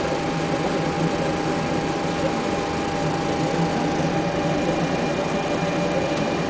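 Steady flight-deck noise in a Boeing 737-400 cockpit on the ground, with the aircraft's systems running: an even rushing hum with a constant mid-pitched tone through it.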